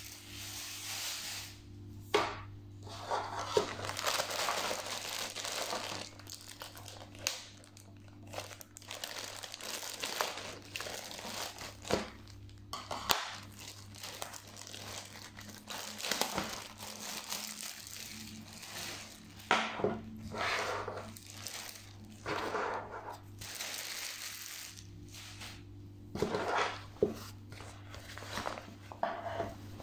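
Clear plastic packaging bag crinkling and tearing in irregular bursts as it is pulled off and away from a camouflage fabric shoulder bag, with a few sharp clicks, over a low steady hum.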